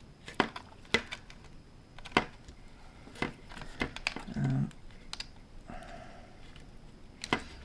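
Scattered small plastic clicks and taps from handling the opened lipo charger's circuit board, as wire connector plugs are pulled off it, with a short scraping sound a little past halfway.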